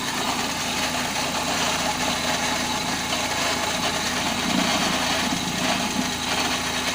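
Car engine idling steadily, with a changed noise in its sound that the owner wants a garage to look at.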